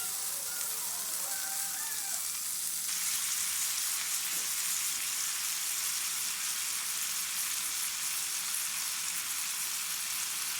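Food sizzling steadily in a hot frying pan while it is pan-seared. The sizzle grows a little louder about three seconds in.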